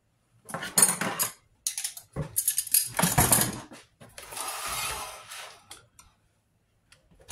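Metal-cased power supply being handled and slid across a countertop: clusters of clattering knocks, then a longer scraping slide in the middle and a few small clicks.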